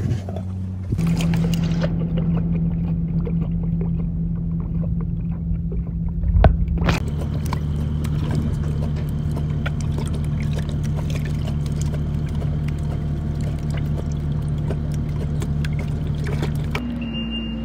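A tiger lapping and splashing water from a metal tub, with small wet clicks of its tongue in the water. A steady low motor hum runs underneath.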